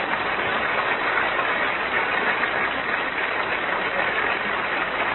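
Live audience laughing and applauding, a steady wash of noise.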